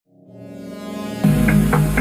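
Electronic background music: a held synth chord fades in from silence, then about a second in a beat with bass and drums kicks in.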